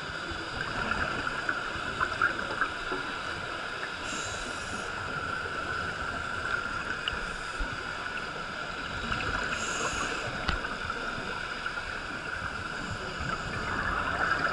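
Underwater sound heard through a camera's waterproof housing: a steady hiss with crackling and small clicks. A scuba diver's regulator breathing and bubbles come through, with a breath burst about four seconds in and another about ten seconds in.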